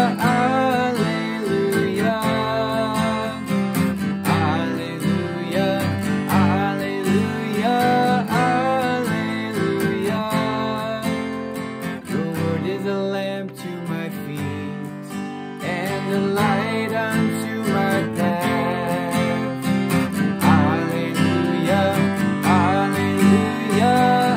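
Man singing while strumming chords on an acoustic guitar.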